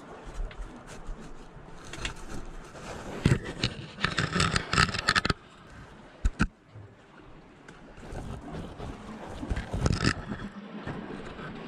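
A camera being grabbed and handled as it is pulled out of a gap between riprap rocks: scraping and rubbing against stone, with sharp knocks about three and six seconds in and a burst of scratchy handling noise in between.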